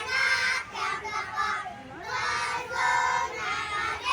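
Children's choir singing in unison, young voices holding sung phrases with a short break about two seconds in.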